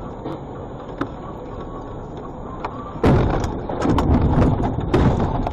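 A vehicle driving with steady road noise, then about three seconds in a sudden loud crash as it runs off the snowy road: a rapid jumble of knocks and thuds as it hits the roadside snowbank.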